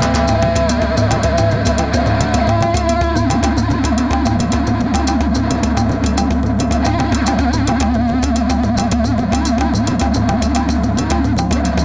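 Background instrumental music with guitar, bass and a steady drum beat.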